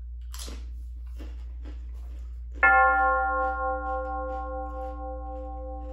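A single struck bell tone about two and a half seconds in, ringing on with several overtones and slowly dying away. Faint small clicks come before it.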